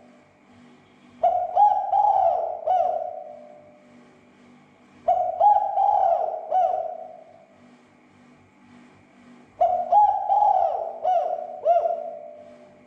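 Spotted dove (tekukur) cooing: three phrases of several arched coo notes each, about four seconds apart, every phrase fading away at its end.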